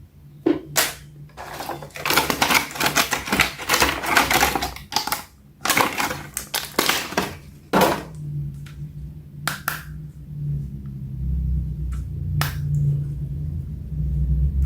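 Plastic toy packaging and an action figure being handled: a stretch of dense crinkling and clicking for several seconds, then a few separate sharp clicks, over a low steady hum in the second half.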